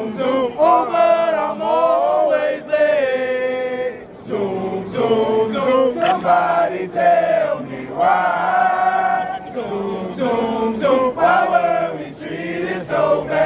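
Group of men chanting in unison, a fraternity probate chant delivered in held, sung phrases with short breaks between them.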